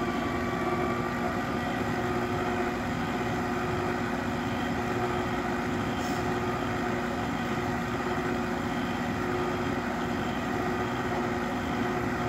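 Pampered Chef stand mixer's motor running at speed one, a steady hum with several held tones, as its dough hook turns through flour at the start of a knead cycle.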